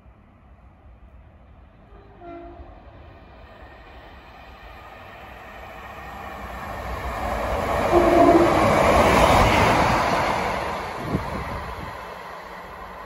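Class 153 single-car diesel unit approaching and running through a station at speed, sounding two short horn notes, a faint one about two seconds in and a louder one as it nears, about eight seconds in. The engine and wheel noise builds to a peak and then fades as it goes away, with one sharp rail click on the way out.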